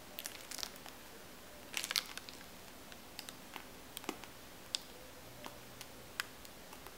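Faint clicks and squelches of a piping bag being squeezed as whipped cream is pressed into a cupcake, with a short cluster of crackles about two seconds in.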